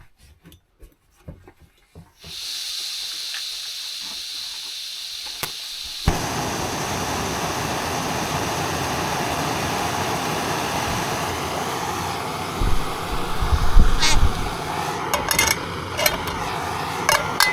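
Food frying in a pan: a steady hiss begins about two seconds in and becomes a louder, fuller sizzle about six seconds in, with a few sharp metal clinks near the end.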